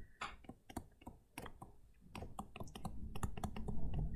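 Stylus tapping and scraping on a tablet screen during handwriting: a faint, irregular series of small clicks, growing busier about halfway through.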